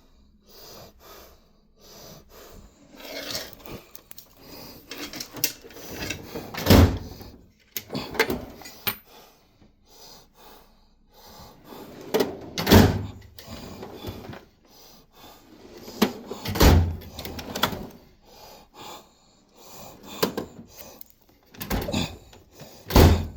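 Tool chest drawers being slid open and shut, with rattling and sliding between four loud bangs as drawers close, each a few seconds apart.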